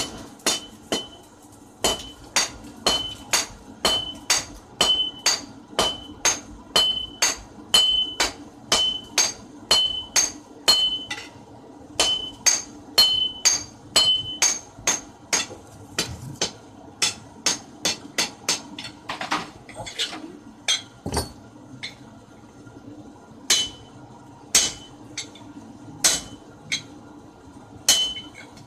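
Hand hammer striking red-hot 19 mm ribbed rebar on an anvil, forging a crowbar: a steady run of blows about two to three a second, many with a short ringing tone, then slower, spaced blows with pauses after about 16 seconds.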